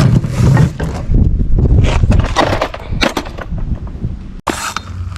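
Clattering knocks and rattles of bikes and a scooter being unloaded and handled, over a low rumble.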